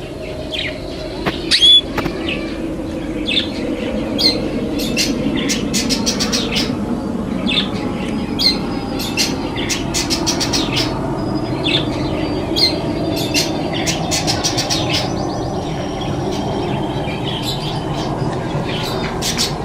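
Many small caged parrots, budgerigars and lovebirds, chirping and squawking without a break, with one loud shrill squawk about two seconds in, over a steady low hum.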